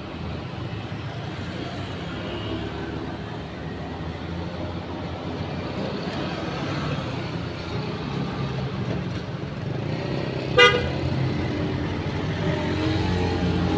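Road traffic passing, cars and motorbikes running by, with one short horn beep about ten and a half seconds in that is the loudest sound.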